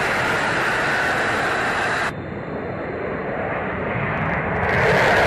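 F-35 Lightning II fighter jet's engine roaring, a loud steady rush. About two seconds in it cuts abruptly to a duller, quieter roar, which then swells louder toward the end.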